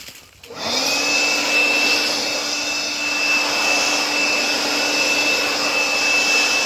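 Leaf blower switched on about half a second in: a brief rising whine as the motor spins up, then a steady high whine over a rush of air as it blows small branches and debris off the trail.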